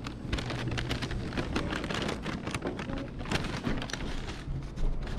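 Paper takeout bag crinkling and rustling close to the microphone as it is carried and gripped at the top: an irregular run of crackles.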